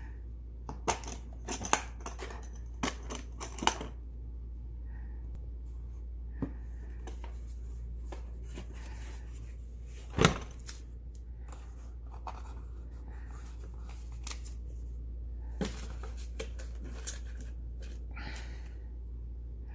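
Black plastic tool case being opened and handled: a quick run of sharp clicks as its metal latches are snapped open, then one loud knock about ten seconds in, with softer clicks and the rustle of the paper manual being moved. A steady low hum runs underneath.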